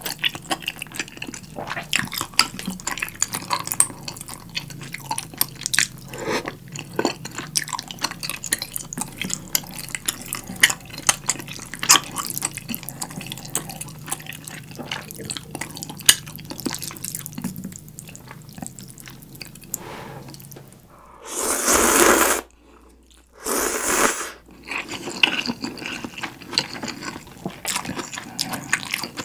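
Close-miked wet chewing of instant gomtang ramen noodles in beef-bone broth, a steady run of small clicks and smacks. About 21 seconds in come two long, loud slurps, one right after the other.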